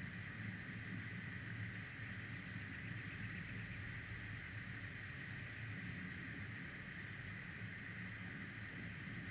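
Steady outdoor background noise on the nest camera's microphone: an even hiss with a low rumble, with no calls or distinct events.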